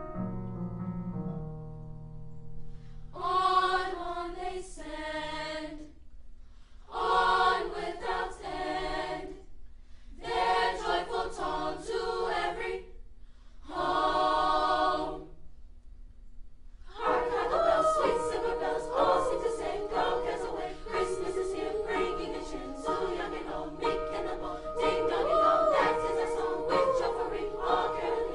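A choir of young singers: a piano chord dies away, then the choir sings four short phrases separated by pauses, and from about halfway through it sings on without a break.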